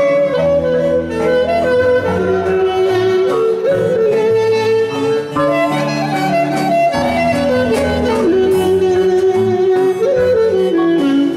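Live Greek folk dance music led by a clarinet, playing an ornamented melody that slides between notes over the band's accompaniment.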